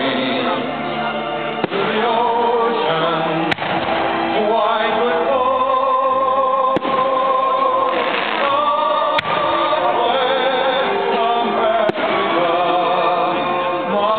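Music with singing plays throughout, broken by five sharp bangs of aerial firework shells bursting, spaced two to three seconds apart.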